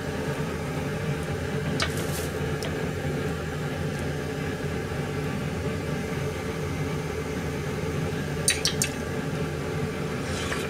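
A metal ladle stirring miso soup in a pot, clinking lightly against the pot a few times: about two seconds in and in a quick run of three near the end, over a steady low hum.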